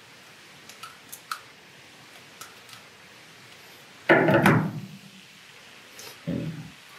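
A few faint small clicks of pliers working a wire end, then a louder clatter about four seconds in as a tool is handled on the workbench, and a shorter bump a couple of seconds later.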